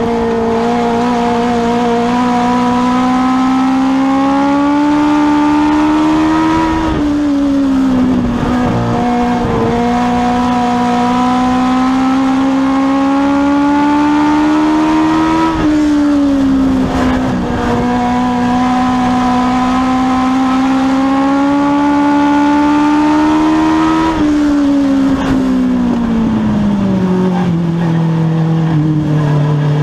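Legends race car's Yamaha 1250 cc four-cylinder motorcycle engine heard from inside the cockpit under hard throttle, its pitch climbing slowly down each straight and dropping briefly as the driver lifts for the turns, about every eight seconds. Near the end the revs fall away and settle lower.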